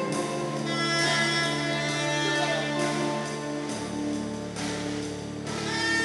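Live instrumental ensemble music: keyboard, violin and soprano saxophone with drums, playing held notes, with the bass line moving to a new note about two-thirds of the way through.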